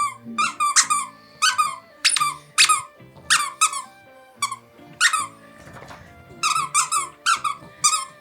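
A puppy biting a squeaky heart-shaped dog toy, setting off rapid bunches of sharp squeaks, each dropping in pitch, with background music underneath.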